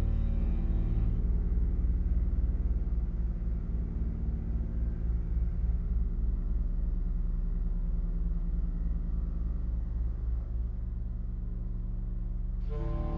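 A low electronic drone: stacked steady tones over a rumbling bass with a fast flutter in it. Brighter tones come back in just before the end.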